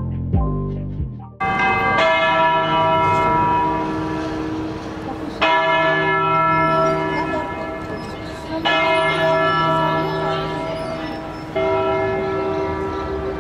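Cathedral church bell tolling slowly, about five strokes a few seconds apart, each ringing on into the next. Background music cuts off about a second in, as the bell starts.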